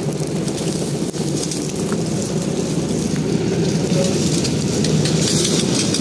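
Fire hose spraying water onto burning brush, a steady loud rushing hiss, over the continuous noise of a running engine.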